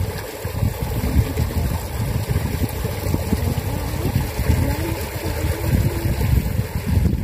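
Low, uneven rumble of wind buffeting the microphone.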